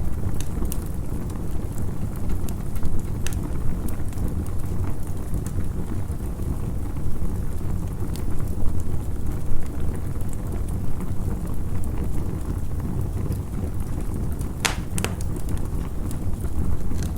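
Campfire crackling, with scattered sharp pops over a steady low rumble of wind. A louder pair of pops comes about fifteen seconds in.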